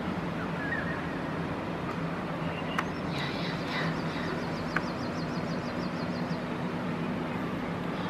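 Steady low background rumble with a hum, in the manner of distant traffic, under faint high bird chirps. Through the middle runs a rapid high trill of about three seconds. Two sharp ticks come about a second apart.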